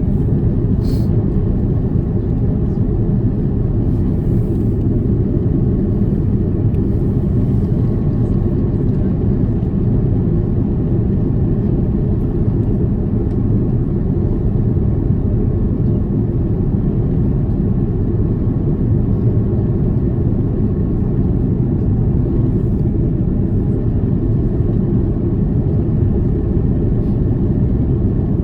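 Airbus A330 cabin noise heard from a passenger seat: a steady, low rumble of engines and airflow, with a faint click about a second in.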